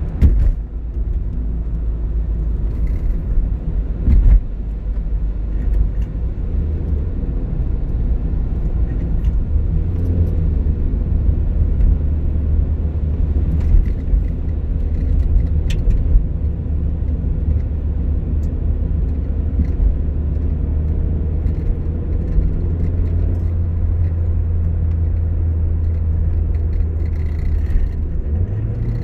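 Car interior driving noise: a steady low engine and road drone with tyre hiss on a wet road, and a couple of knocks from bumps in the first few seconds. The engine note steps up about ten seconds in and again near the end.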